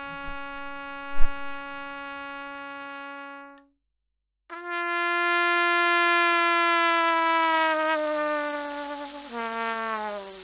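Trumpet demonstrating a note bend. A steady held note gives way, after a short break, to a louder note that sags slowly in pitch as the embouchure is relaxed with the air still blowing, then falls down to the next lower note, from G to C, near the end. A brief thump sounds about a second in.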